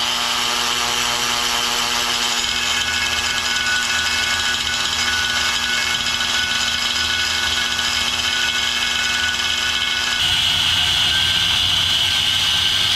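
Electric angle grinder with a thin-kerf cutting wheel running at speed against a steel wheel rim, a steady high whine. About ten seconds in it gets louder and harsher as the wheel bites into the steel.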